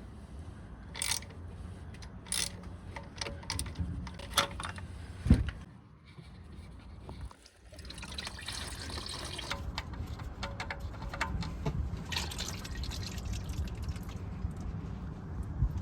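Engine oil pouring in a steady stream, with a few clicks and knocks in the first five seconds, the loudest about five seconds in.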